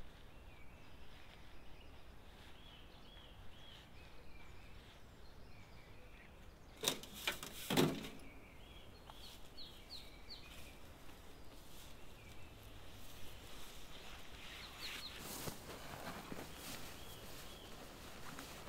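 Woodland birds calling, with short chirps repeating throughout over a faint outdoor hiss. A couple of sharp knocks come about seven to eight seconds in, and a few fainter clicks follow around fifteen seconds.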